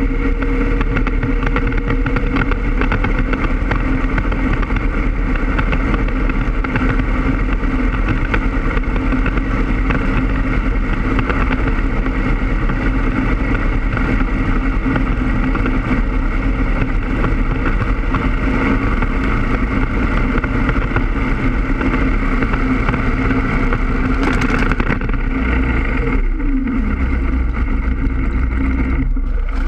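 A boat's 5.7-litre V8 running hard while its radial surface-drive paddle wheel churns the water and throws spray. About three-quarters of the way through comes a sharp crack as the drive fails, and the engine note falls away in pitch.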